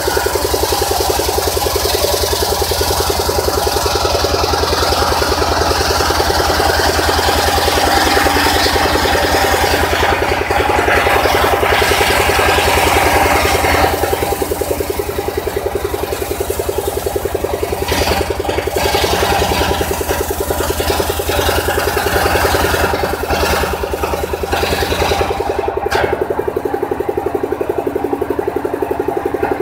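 Engine-driven circular saw bench running steadily while a log is fed through the blade, a hissing cutting noise over the engine's even beat. Near the end the cutting noise stops and the blade spins on with the engine alone.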